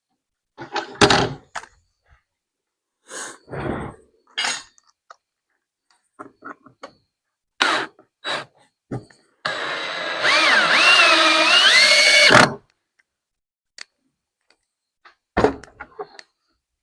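Scattered knocks and clunks of tools and parts being handled on a workbench. About ten seconds in comes a three-second stretch of hiss with wavering, gliding whistling tones, which cuts off suddenly.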